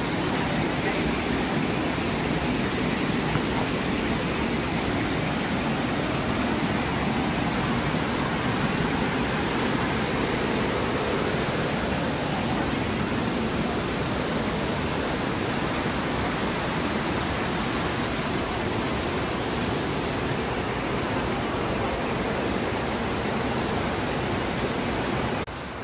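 Barung Waterfall running in high flood flow after rain: a loud, steady rush of water that cuts off abruptly just before the end.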